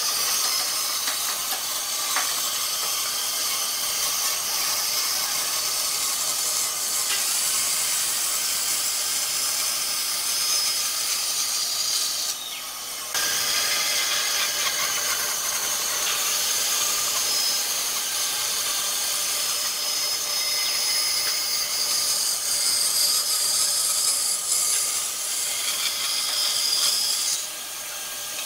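Bandsaw running and cutting a curve through a thick wooden board: a steady sawing noise over the machine's running hum, breaking off briefly about halfway through and again near the end.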